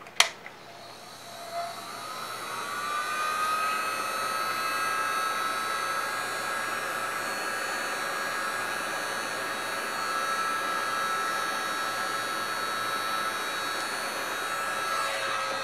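Handheld heat gun switched on with a click, its fan whine rising over the first few seconds and then running steadily while blowing hot air; it cuts off near the end.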